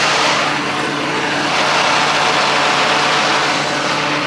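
A diesel engine running steadily, a constant low hum under an even noisy wash.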